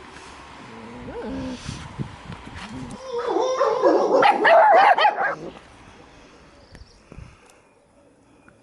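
Skye Terrier puppies yapping and whining: soft low whimpers at first, then a loud burst of overlapping high-pitched yelps from about three seconds in, dying down after five and a half seconds.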